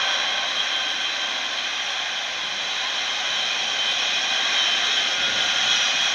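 Antonov An-124 Ruslan's four Ivchenko-Progress D-18T turbofans running steadily on the runway: a rushing jet noise with several high whining tones over it.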